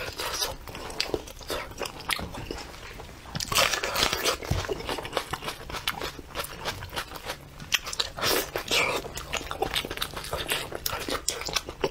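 Close-up eating sounds of spicy braised sheep head: chewing, biting and wet smacking, mixed with the squelch of fingers pulling the sauce-soaked meat apart. Louder bursts come about four seconds in and again about eight seconds in.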